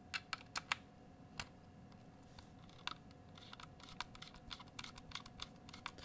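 A hand screwdriver driving screws through a Mac Pro drive sled into the bottom of an Icy Dock drive adapter: irregular small, sharp clicks and ticks of the bit, screw and metal sled. A few loud clicks come near the start, then quicker, lighter clicking through the second half.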